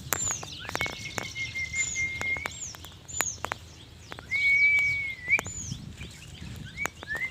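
Birds calling: short high chirps repeated every second or so, and longer level whistled notes held about a second each, over scattered sharp clicks.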